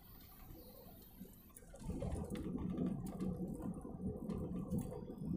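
A car's engine and road noise heard from inside the cabin: a low rumble that grows louder about two seconds in and then holds steady.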